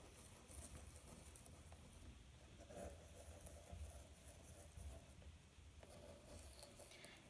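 Near silence: faint soft scratching and light tapping of a bamboo skewer poking seed holes into damp rockwool cubes, over a faint low hum.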